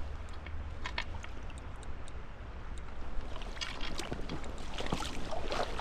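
Creek water rushing and sloshing around the angler's wading legs, with a few small splashes from about four seconds in as a landing net is dipped into the water to scoop up a hooked trout. A low steady rumble runs underneath.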